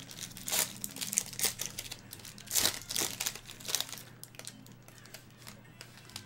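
Foil wrapper of a trading-card pack crinkling as it is torn open and the cards are slid out, in irregular crackly bursts that thin out after about four seconds.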